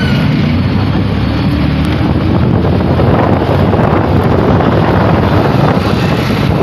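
Wind buffeting the microphone from a moving vehicle, a loud steady rumble with road and engine noise underneath.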